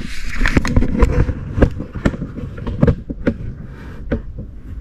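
Irregular sharp clicks and knocks of metal parking-brake hardware (shoes, springs and hold-down pins of a drum-in-hat parking brake) being handled and worked on, thickest in the first three seconds and thinning out after.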